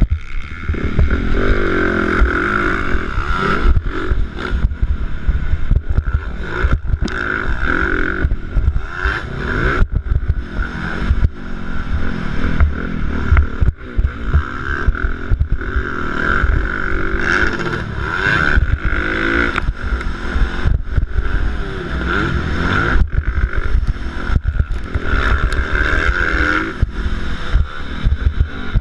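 Dirt bike engine revving, its pitch rising and falling again and again as the bike is ridden hard round a motocross track. Heavy wind buffeting on the helmet-mounted microphone rumbles underneath.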